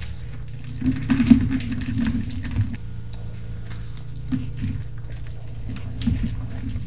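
Reformed gym chalk crunching and crumbling in several short bursts of crisp crackles, the longest about a second in, over a steady low hum.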